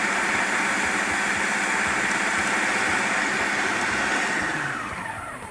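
Electric food processor running steadily as it chops portobello mushroom caps, then switched off about four and a half seconds in, its motor winding down.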